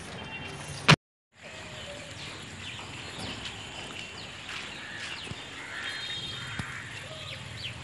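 A single loud thud about a second in, the body hitting the ground in a staged fall from a rooftop, followed by a moment of dead silence. Then outdoor ambience with birds chirping.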